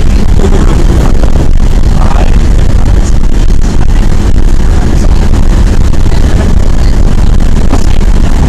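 School bus engine and road rumble heard from inside the bus, a steady deep rumble so loud that it overloads and distorts the recording.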